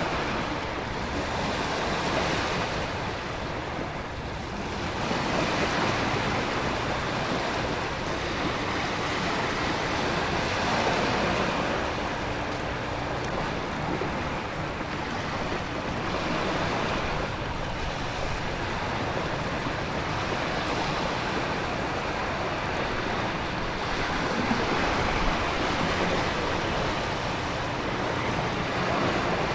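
Storm ambience: heavy ocean surf swelling and breaking every several seconds, under a continuous wash of wind and heavy rain.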